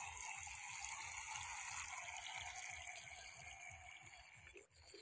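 Small remote-control toy speedboat running on a pond: a steady hiss of its propeller churning the water and its small electric motor. The sound fades a little near the end as the boat pulls away.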